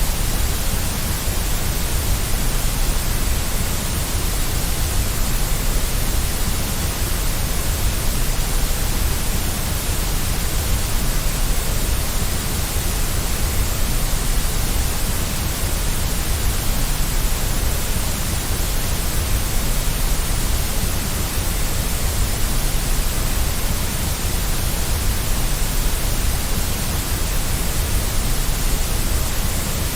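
Continuous generated white noise: an even, unchanging hiss at a steady level.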